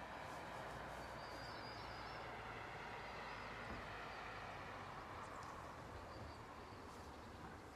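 Faint steady outdoor background noise with a few short, high bird chirps.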